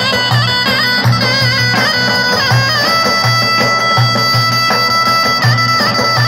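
Davul, the large double-headed bass drum, beating an uneven, repeating halay dance rhythm, with a shrill reed pipe, typically a zurna, playing an ornamented folk melody over it and holding a long note from about halfway through.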